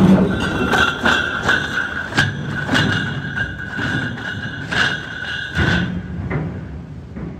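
Heavy drag chains on a launching ship's hull clanking and rattling as the hull slides down the slipway into the water, with a steady high squeal over them that stops about six seconds in.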